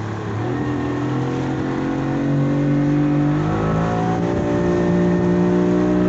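Speedboat engine running at speed, its note rising in two steps, about half a second in and again about three and a half seconds in, as it picks up revs. A steady rush of water and spray runs along the hull underneath.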